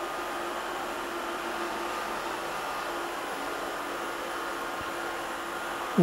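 Ecovacs Deebot X1 Omni robot vacuum running, with a steady whirr of its suction motor and a faint steady hum.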